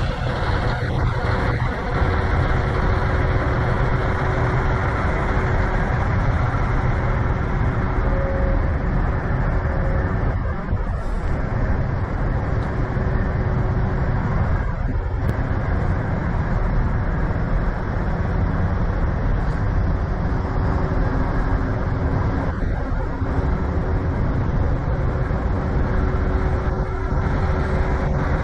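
Steady rumble of semi-truck diesel engines running amid road traffic noise.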